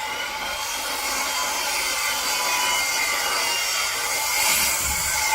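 Electric power tool running steadily on wood, a continuous motor whine with a gritty cutting noise throughout.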